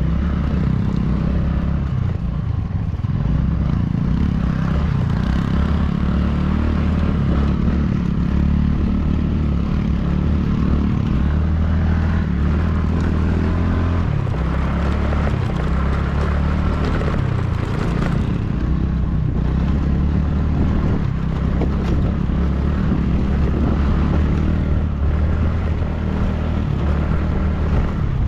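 A vehicle engine running steadily at cruising speed during a ride, with road and wind noise.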